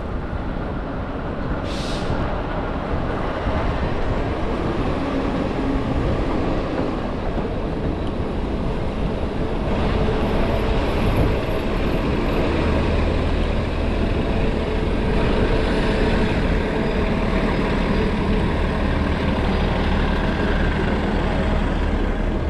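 City street traffic: motor vehicles running steadily, with a short hiss about two seconds in.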